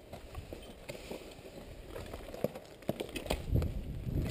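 Footsteps crunching on rubble and debris, with gear rustling, quickening into an irregular run of knocks and crunches in the second half.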